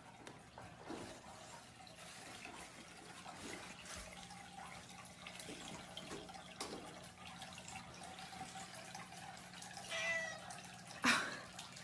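Faint steady hiss and low hum, then about ten seconds in a pet gives one short high call that falls in pitch, followed about a second later by a sharp knock.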